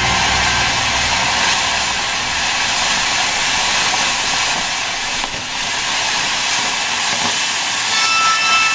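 Ground fountain firework spraying sparks with a steady, loud hiss.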